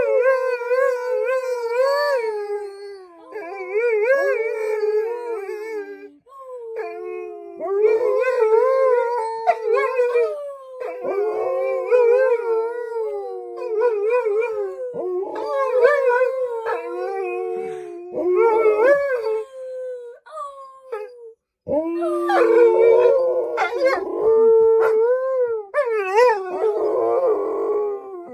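Alaskan Malamutes howling: long howls that waver up and down in pitch, with short breaks between them. Near the end two or more voices overlap.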